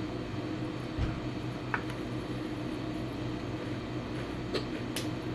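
A steady low machine hum with a few faint clicks and taps.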